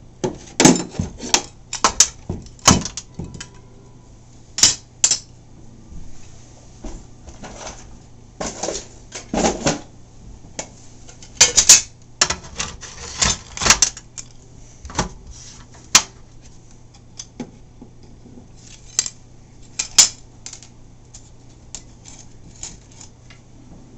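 Irregular clicks, taps and rattles of small hard parts against the plastic hull of an NQD PX-16 RC catamaran as it is handled and taken apart by hand, coming in scattered clusters with a few sharp, louder knocks.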